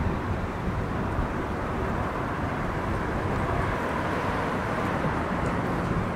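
Steady city-street ambience with road traffic and a low, even rumble.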